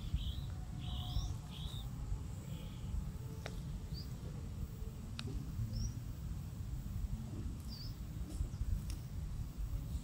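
Bird chirps: a quick run of short, high, drooping chirps in the first two seconds and a few single chirps later, over a steady low rumble on the microphone and a few sharp clicks.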